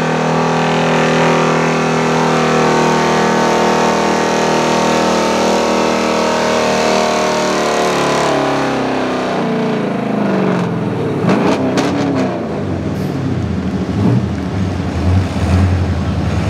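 Chevrolet pickup truck's engine held at high revs under full load while dragging a truck-pulling sled, then the revs fall away about eight seconds in as the pull ends. It then runs lower and uneven, with a few sharp cracks.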